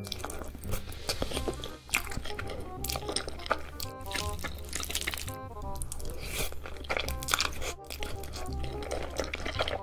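Background music over close-miked eating: cheesy ramen noodles being slurped and chewed, with many small wet clicks and crunches.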